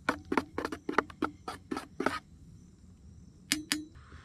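A metal spoon stirring coffee in a CamelBak camp mug, clinking quickly against the mug's sides, about four to five clinks a second. The stirring stops after about two seconds, and two more ringing clinks follow about three and a half seconds in.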